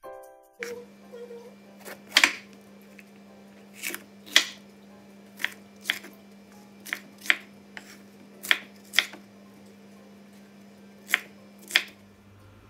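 Kitchen knife chopping a green bell pepper on a wooden cutting board: about a dozen sharp knocks of the blade on the board, unevenly spaced and often in quick pairs, over a faint steady low hum. A short music jingle ends just before the chopping starts.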